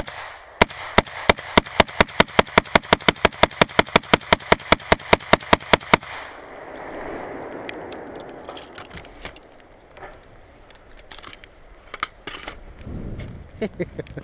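Rapid gunfire: a fast, even string of about thirty shots at roughly five or six a second, stopping about six seconds in. After it comes a softer rushing noise with a few faint scattered clicks.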